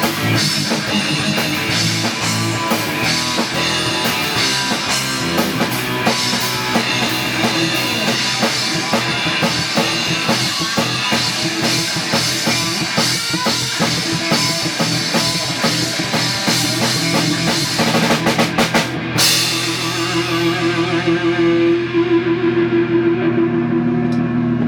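Rock music with a drum kit, cymbals and guitar. About 19 seconds in, the drums and cymbals stop abruptly and held guitar notes ring out.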